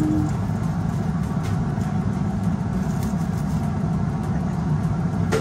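Steady low rumble of a pot of water at a rolling boil on an induction hob, as spaghetti is pushed down into it.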